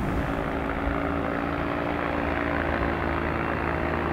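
A propeller airplane's engine running steadily overhead, giving a continuous hum with several held tones. To the listener it sounds as if the engine is about to quit.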